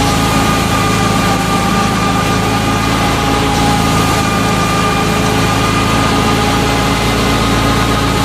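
Tractor-driven wheat thresher running steadily while threshing: a constant machine drone with a low hum and a steady high whine over a wash of noise.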